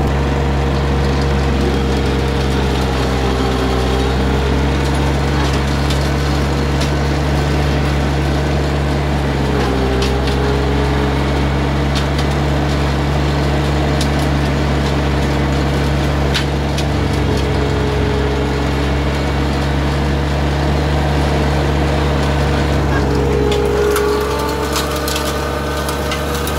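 Solis 22 compact tractor's Yanmar diesel engine running steadily under load while driving a Zeppelin Kalahari 125 flail mulcher shredding grass and weeds. The engine pitch dips briefly about ten seconds in and again near the end, with scattered sharp ticks over the steady run.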